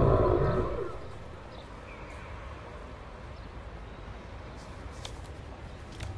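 A held, many-toned musical sound bends down and fades out in the first second. It leaves a quiet soundtrack ambience of steady low noise, with a few faint high chirps and a couple of soft clicks near the end.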